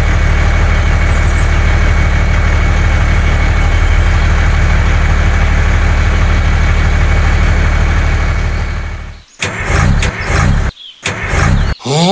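Engine running steadily, with a deep, unbroken hum, that fades out about nine seconds in. Short choppy sounds with gaps follow, and a rising whistle-like glide comes at the very end.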